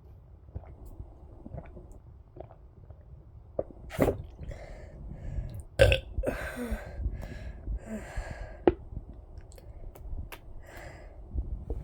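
A person burping several times in an irregular string from a stomach full of water, the loudest burp about six seconds in.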